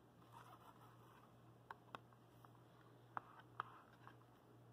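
Near silence with a faint steady low hum, broken by four faint clicks as hands handle and turn the stiff cardboard pages of a board book.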